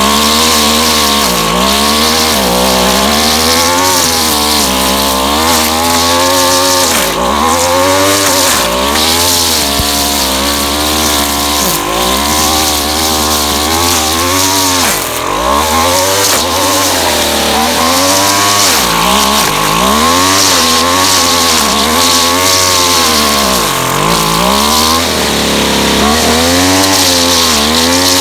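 Two-stroke gas string trimmer running at high speed, its pitch dipping and recovering every second or two as the line cuts into vines along a fence.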